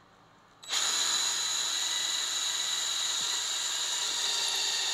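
Power drill with a twist bit boring into plywood, starting up about a second in and running at a steady speed with a high, even whine.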